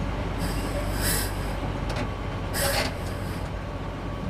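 Crane engine running steadily under load as the crane moves a concrete beam, a low, even rumble with two brief high-pitched bursts of hiss or squeal over it.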